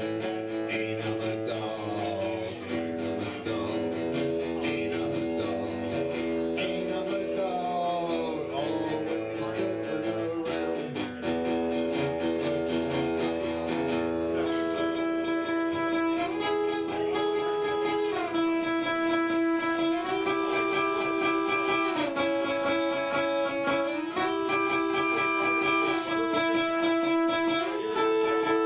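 Solo guitar playing an instrumental break in a blues song. Picked chords with string bends come first, then notes held and changed every couple of seconds from about halfway through.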